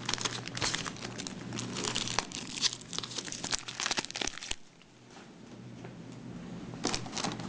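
Foil booster-pack wrappers and trading cards being handled: irregular crinkling and crackling of the wrapper plastic, stopping about two thirds of the way in, with a few faint crinkles near the end.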